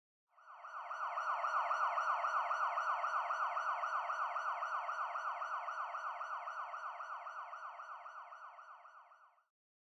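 Sparking tin toy rocket car running with a siren-like whir that pulses about five times a second under steady high whistling tones. It swells up in the first second or two and slowly fades away near the end.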